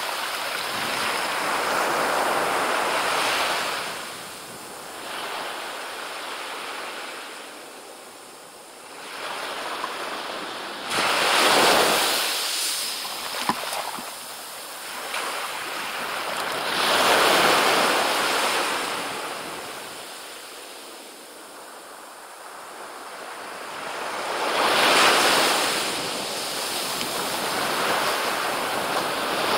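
Small waves breaking and washing up a sandy beach, the surf swelling and fading in slow surges every several seconds, with a single short click about halfway through.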